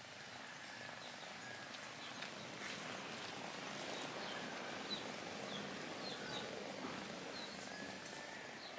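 Outdoor background of small birds chirping now and then, in short quick notes that come more often in the second half, over a steady low hiss.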